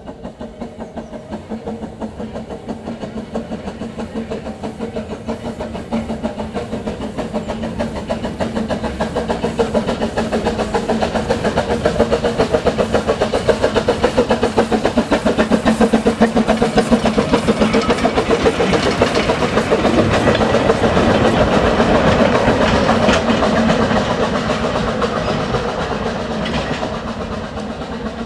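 A small narrow-gauge locomotive working past with a fast, rhythmic beat, growing steadily louder to its loudest about two-thirds of the way through, then fading a little as it goes by.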